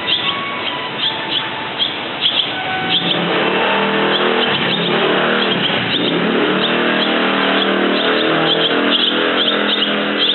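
Barn swallows twittering in short, rapid high chirps. From about three seconds in until near the end, a vehicle engine runs steadily underneath and is the loudest sound.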